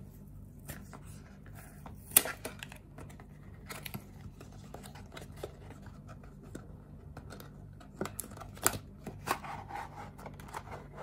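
Cardboard retail box and its plastic tray being handled and opened by hand: scattered scraping, rustling and sharp clicks, the loudest click about two seconds in and a cluster of clicks near the end as the tray slides out.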